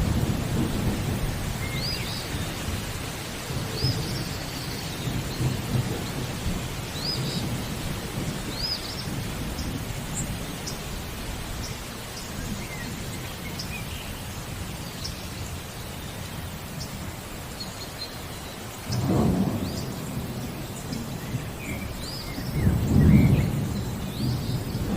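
Steady rain with rolling thunder: a rumble that fades early, then swells again briefly about two-thirds of the way through and more strongly near the end. Birds chirp over it in short calls every couple of seconds.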